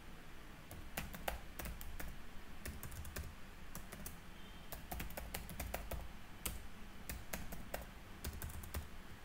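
Typing on a computer keyboard: a run of irregular keystrokes, several a second with short pauses, starting about a second in.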